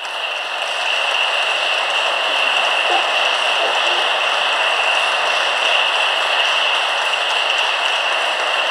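Audience applauding: dense, even clapping that swells to full strength within the first second and then holds steady.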